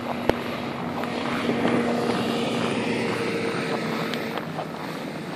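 A motor vehicle passing along the road: engine tone and tyre noise build up, hold for a few seconds, then fade away. There is a single sharp click near the start.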